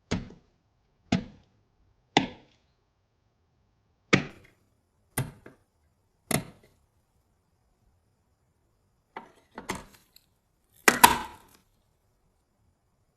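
Sharp knocks and clacks of hard PC parts and their packaging being handled and set down: six single knocks about a second apart, then two short bursts of clatter near the end.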